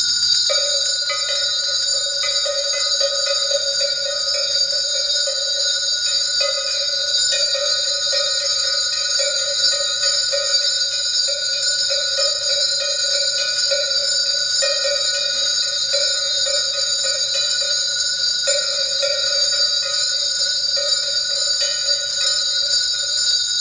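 Several small brass hand bells rung together without pause, a dense mass of overlapping ringing tones with constant fresh strikes.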